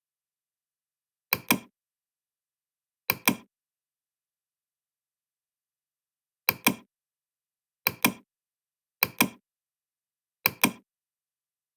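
Six short double knocks spread irregularly over about ten seconds, each a pair of sharp clicks in quick succession, with dead silence between them.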